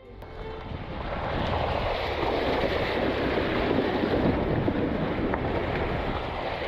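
The front tyre of a Mahindra Thar splashing through a shallow stream crossing, water spraying up from the wheel, with wind on the outside microphone. The rushing noise starts abruptly and builds over the first second or two.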